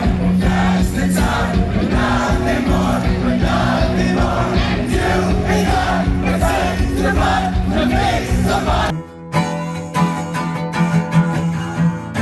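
Loud music with singing. About nine seconds in it cuts abruptly to a different, sparser piece of music with steady held notes.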